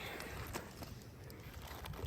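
Faint handling noise of roofing shingles being worked loose: light scraping with a few soft taps.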